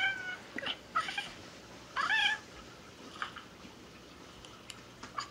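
Cat meowing: a string of short meows, the loudest at the very start and about two seconds in, with fainter ones between and after.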